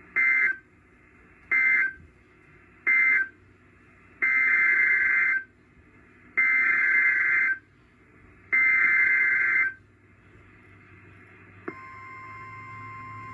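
Emergency Alert System data bursts: three short end-of-message bursts, then three longer header bursts for the next alert, each a harsh two-pitch warbling screech. Near the end a steady alert tone starts.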